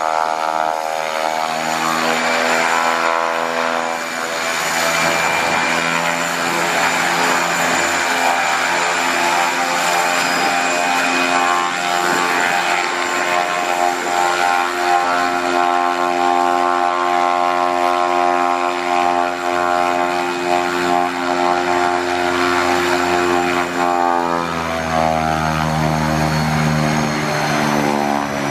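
Pacific Aerospace Cresco 08-600's Honeywell LTP101 turboprop running uncowled on a ground engine run: a steady turbine whine over the propeller's drone. About 24 seconds in the note shifts and a deeper propeller drone comes up.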